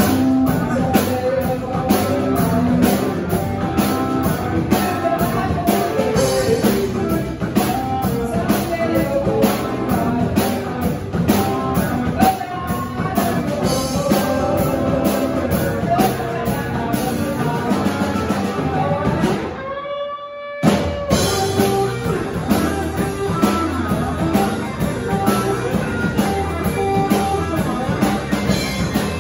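Live rock band playing: a woman singing over electric guitar, bass guitar and a drum kit. The sound drops out briefly about twenty seconds in, then the band carries on.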